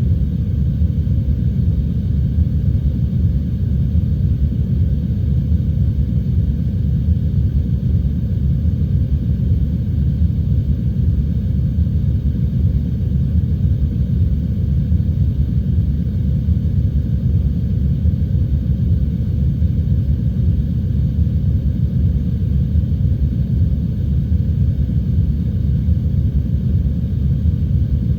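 Steady heavy rain and wind ambience, heard as a deep, even rumble with little high-pitched patter.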